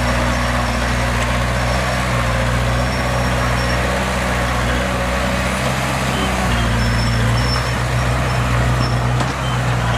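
Diesel engine of heavy earthmoving machinery running steadily with a low, even engine note, a little louder for a few seconds in the second half.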